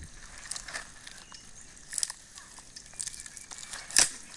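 Hands rubbing thick chilli masala paste onto a raw whole chicken: irregular wet squishing clicks and smacks, the loudest about four seconds in.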